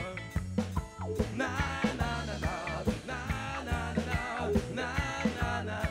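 Live band playing a reggae groove: drum kit with regular beats, bass guitar and electric guitar, with a singer's voice over the band.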